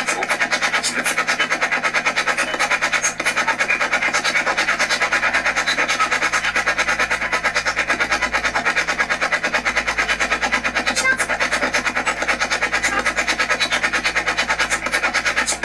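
Ghost box sweeping rapidly through radio stations, giving a steady, choppy stream of static and broken snatches of broadcast sound that pulses several times a second.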